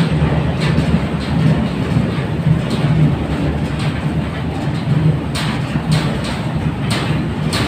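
Goods train's brake van rolling slowly along the track: a steady low rumble of wheels on rail, with a few short clicks in the second half.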